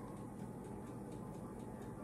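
Pancake batter cooking in a hot pan on an electric stove: a faint steady sizzle with light, fairly regular crackling ticks.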